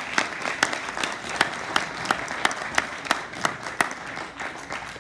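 Audience applauding, with one person clapping close by about three times a second over the crowd's steady clapping; the applause thins out near the end.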